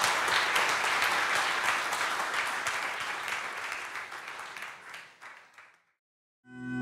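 Lecture-hall audience applauding, fading out over about five seconds. Near the end a steady chime-like tone begins.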